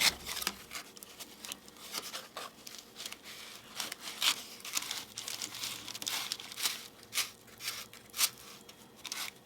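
Cardboard tissue roll being worked by hand for a second stick: irregular scratchy, crinkling strokes of cardboard against a craft blade and stick.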